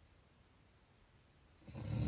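A sleeping person snoring: a quiet pause between breaths, then a loud snore starts near the end.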